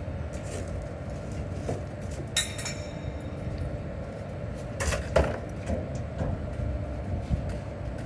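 Steady low rumble of running machinery, with ringing metal clinks about two and a half seconds in and again around five seconds in.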